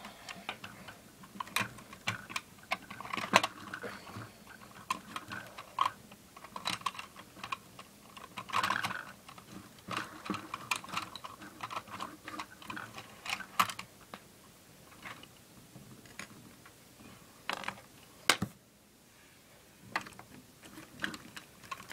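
Irregular clicks and light knocks of plastic Lego pieces being handled and fitted on a Lego Batcave set, with a near-quiet pause shortly before the end.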